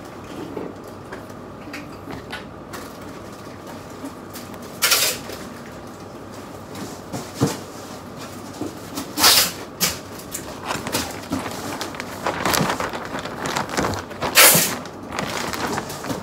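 Clear plastic bag crinkling and rustling as a folded jacket is handled and pushed into it. There are three louder crinkles, about five, nine and fourteen seconds in, with denser rustling just before the last.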